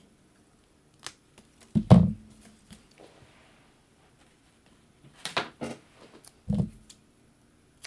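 Paper card pieces being handled and set down on a table: a few short soft knocks and rustles, with quiet between them.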